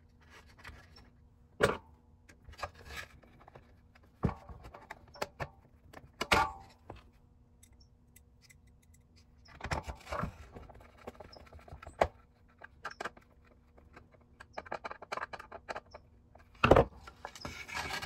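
Plastic housing of a small space heater being handled and fitted back together, with a screwdriver at work on it: scattered clicks and knocks with bouts of rustling, the loudest knock near the end.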